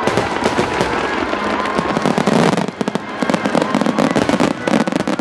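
Large fireworks display: a dense, continuous crackle of many shells bursting at once, with whistle-like tones gliding up and down over it. There is a brief dip in loudness about halfway through.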